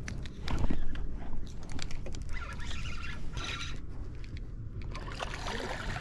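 Spinning reel being cranked, with many small clicks, and water splashing as a hooked bass is brought to the side of the boat.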